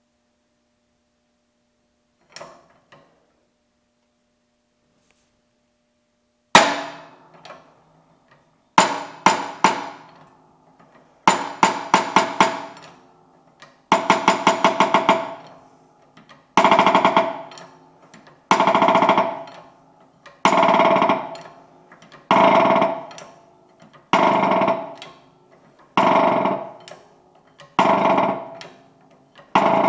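Hydraulic shop press forcing a shaft out of a mill's 90-degree gearbox: sharp metallic clanks, each ringing out. They come in quick clusters at first, then singly about every two seconds.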